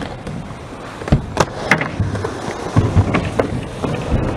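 Skateboard wheels rolling on concrete, broken by a series of sharp clacks and knocks from the board, the loudest about a second and a half in.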